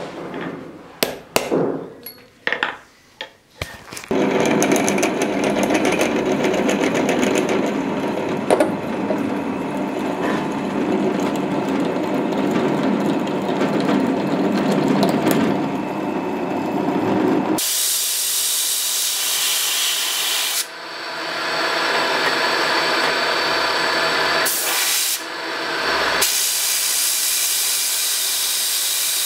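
A series of sharp hammer taps on a center punch against a small steel block on an anvil, then a drill press running and boring into the steel block. About two-thirds of the way through the sound turns to a bright, steady hiss as a narrower bit drills on, with two short breaks.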